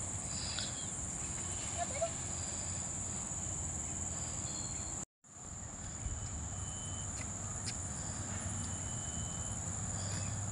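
Steady high-pitched insect drone, one unbroken tone, over a low rumble, with a few faint short chirps. The sound cuts out briefly about halfway through.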